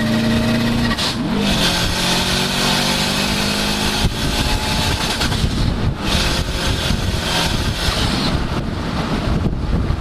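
Subaru Impreza WRX rally car's turbocharged flat-four engine pulling hard at speed, heard from inside the car. Its pitch drops about a second in, at a gear change, and holds until about four seconds in. After that a loud, even rush of tyres and sand covers it, with the engine rising faintly underneath.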